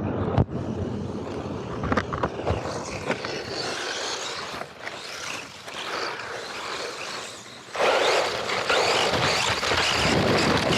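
Radio-controlled car driving over dirt, heard from a camera mounted on the car: a rattling, gritty rush of tyres, chassis and loose dirt with wind on the microphone, getting much louder about eight seconds in.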